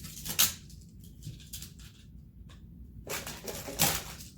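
Plastic magnetic building tiles clicking and clattering together as they are grabbed and gathered from a pile. There is a sharp clatter about half a second in and a longer burst of clattering around three to four seconds in.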